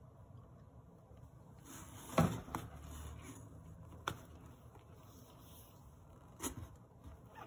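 Plastic bottles and a cardboard box being handled during an unboxing: a few light knocks and scrapes, the loudest about two seconds in, then single knocks near four and six and a half seconds.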